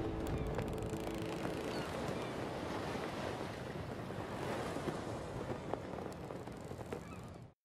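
Steady wind rushing, with faint scattered snaps of a flag flapping, cutting off suddenly near the end.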